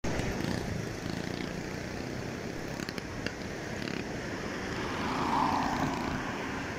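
A car passing close by, its noise swelling and fading about five seconds in, over steady road noise.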